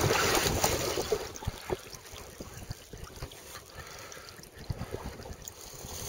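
Water splashing and trickling against a sea kayak's hull, loudest in the first second or so and then dropping to a quieter trickle with small scattered splashes.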